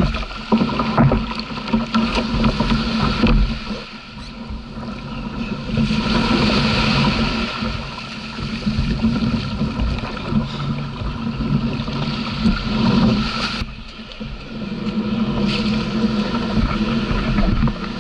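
Paddle strokes splashing at first, then surf washing around a plastic sit-on-top fishing kayak as it comes through the shore break into the shallows and onto the beach, with wind buffeting the kayak-mounted microphone.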